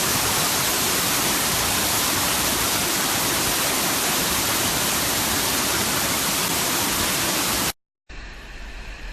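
A waterfall's steady rush of falling water. It cuts off abruptly about a second before the end, and after a brief silence a much quieter hiss follows.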